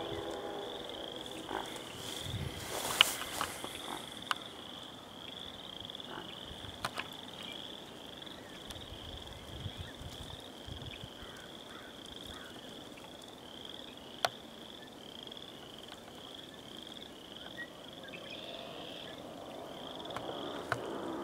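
A chorus of frogs calling from a pond: short, high, creaking calls repeated about every half second. A few sharp clicks are heard, the loudest about three seconds in.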